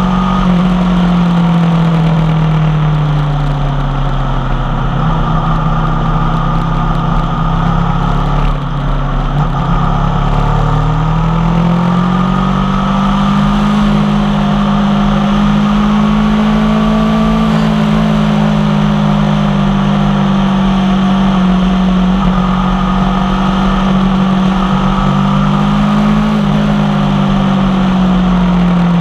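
Aprilia Tuono V4 1100 Factory's V4 engine through an unbaffled M4 carbon exhaust, under way on the road. The engine note falls off over the first few seconds, stays low for a spell, climbs back about a third of the way in and holds fairly steady, easing slightly near the end.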